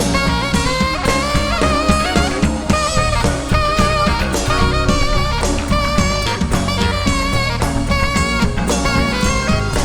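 Band music: a drum kit and bass keep a steady beat under a wavering lead melody line.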